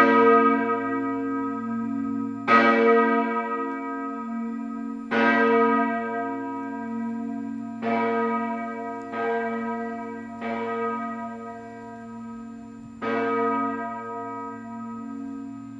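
The large cast-steel b° church bell (Bochumer Verein, 1954) swinging and ringing on its own, about seven strokes at uneven spacing. Each stroke is left to hum and fade, and some later strokes are weaker.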